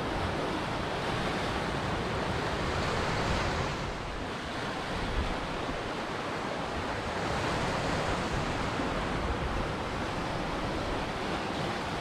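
Ocean surf: waves washing in with a steady rushing hiss that eases about four seconds in and builds again about seven seconds in.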